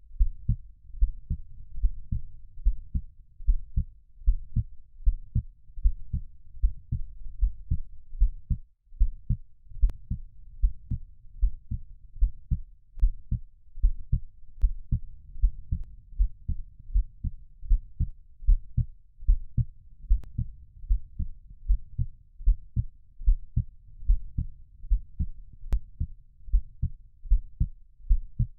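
Heartbeat, a steady muffled lub-dub in pairs of low thumps about once a second, with a low rumble between beats. The beat drops out briefly about nine seconds in.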